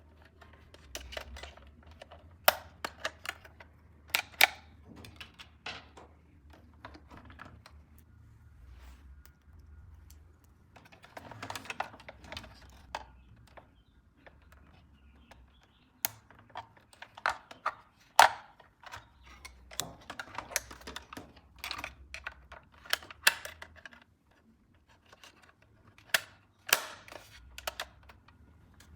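Plastic parts of a remote-control toy car and its packaging being handled: irregular clicks, taps and rattles in bunches, with short quieter gaps between them.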